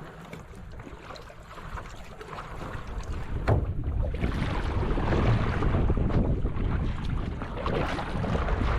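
Wind buffeting the microphone, getting louder about three seconds in, over water splashing around a paddled kayak, with a single knock about three and a half seconds in.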